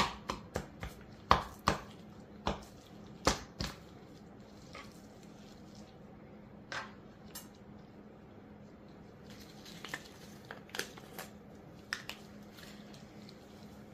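A meat fork jabbing into a beef chuck roast and knocking against a plastic cutting board. The quick stabs slow to a few separate knocks over the first four seconds, then give way to occasional faint taps and clicks.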